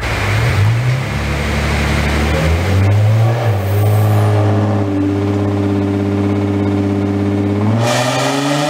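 Infiniti G35's VQ35DE V6 through a Greddy cat-back exhaust with test pipes, running fast at first and dropping to a steady idle about two and a half seconds in, then revving up near the end.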